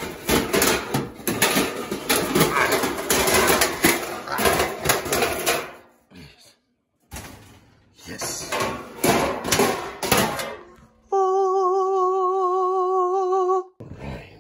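Metal pizza pans and a wire-mesh pizza screen clattering and scraping as they are handled and shifted, in two bouts. Near the end a steady, slightly wavering tone sounds for about two and a half seconds.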